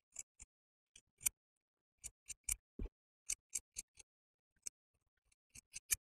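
Small fabric snips cutting through layered fabric: a quick, irregular series of short snips, some in close pairs, as the excess is trimmed close to the stitched seam.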